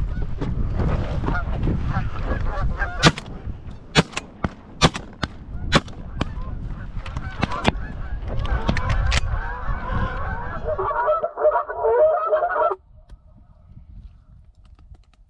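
A flock of Canada geese honking in flight, the calls building into a dense chorus about two-thirds of the way through and then cutting off abruptly. Wind rumbles on the microphone in the first half, with several sharp clicks.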